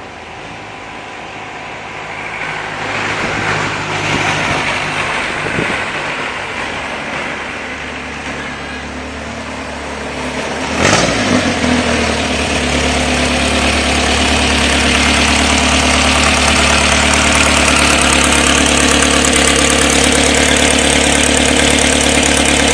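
Car engine rumbling. The revs rise and fall over the first ten seconds. A sharp knock comes about eleven seconds in, then the engine holds louder at steady revs.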